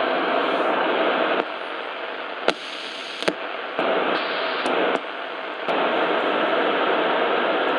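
Sony ICF-6800W shortwave receiver hissing with static from its speaker while being tuned. The hiss drops lower about a second and a half in, two sharp clicks sound in the quieter stretch, and the full hiss returns near the six-second mark.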